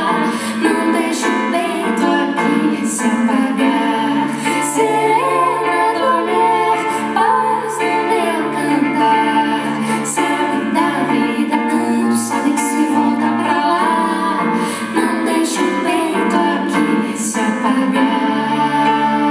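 A woman singing a song to grand piano accompaniment, performed live.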